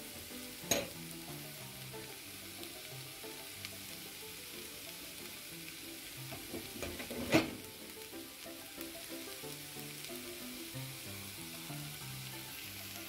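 Diced snake gourd and carrot sizzling steadily in a hot nonstick pan while a wooden spatula stirs them and crushed coconut mix goes in. Two sharp knocks stand out, a small one just under a second in and a louder one about seven seconds in.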